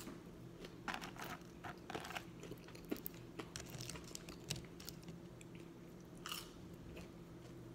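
A person chewing food close to the microphone: faint, irregular clicks and crunches of eating, over a faint steady hum.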